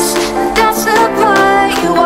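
Background pop music with a sung vocal line over an electronic beat.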